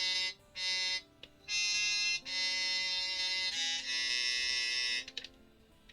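Roland Aerophone Mini digital wind instrument playing a short practice phrase: two short notes, then three longer held notes run together, stopping about five seconds in.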